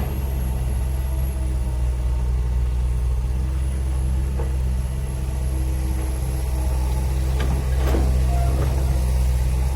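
Heavy diesel earthmoving machinery running steadily with a low, even drone. There are a couple of short knocks about three quarters of the way through.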